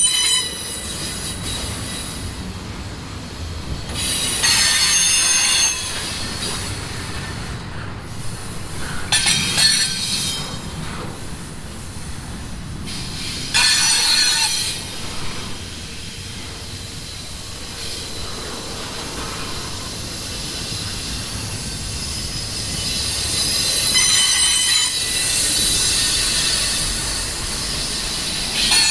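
Passing train: a steady rumble of cars rolling on the rails, with high-pitched wheel squeal rising up in several stretches of a second or two, and a longer one near the end.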